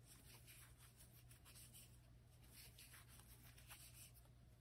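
Near silence with faint, scattered rustling of yarn being drawn over a crochet hook as single crochet stitches are worked, over a low steady hum.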